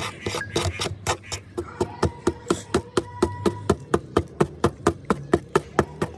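Hammer blows in a quick, even rhythm, about five a second, most likely a hammer striking metal during the knife repair. A faint ringing tone sits under the blows.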